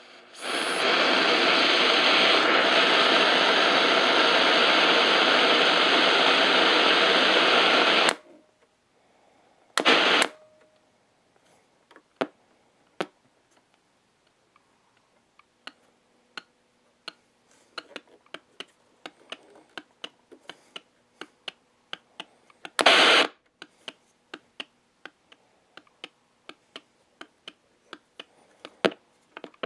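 Sony ICF-6800W receiver's loudspeaker giving loud, steady static hiss that cuts off suddenly about eight seconds in. It then falls nearly silent on its shortwave band, broken by two short bursts of noise and by sharp clicks and crackles that come more and more often toward the end. The owner says this band has a fault that might be caused by bad PLL transistors.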